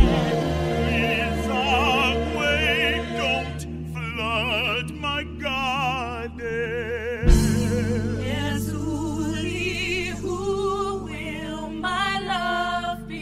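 Musical theatre singing: a woman's voice with strong vibrato over an accompaniment. About seven seconds in, it cuts abruptly to another sung passage with a fuller, lower accompaniment.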